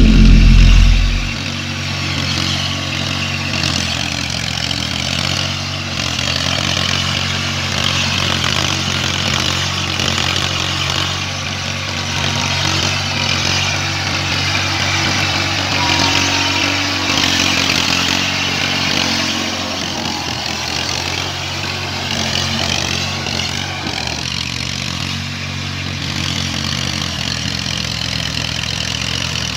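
Tractor diesel engine running steadily under load while pulling a rotavator through a wet paddy field. A loud low buffet in the first second or so stops abruptly.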